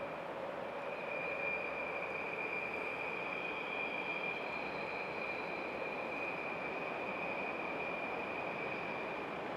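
Freight train hauled by BLS Cargo electric locomotives passing at a distance: a steady rolling rumble with a high whine held throughout.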